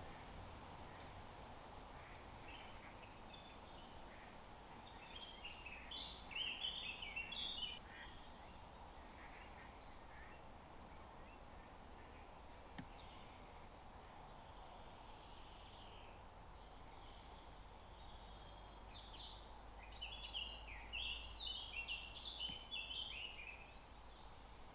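A bird singing two bursts of quick, jumbled high notes, the first about five seconds in and the second near the end, over a faint steady background hiss.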